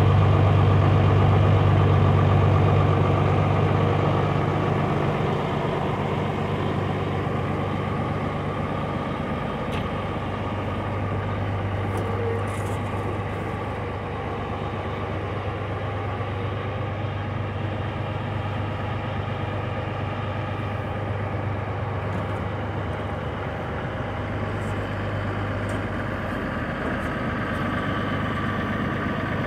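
Valmet 8150 tractor's 6.6-litre six-cylinder Sisu diesel idling steadily while it warms up after a cold start in freezing weather. It is somewhat louder for the first few seconds, then settles to an even, lower drone.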